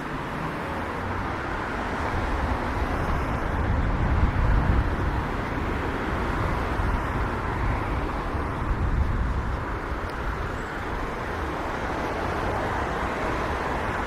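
City street traffic: a steady rumble of passing cars, swelling about four seconds in and again near nine seconds.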